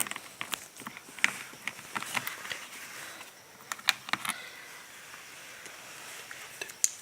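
Small screwdriver clicking and tapping against a laptop's bottom cover and its screws as the screws are backed out: sharp, irregular clicks for the first four seconds or so, then only a few more near the end.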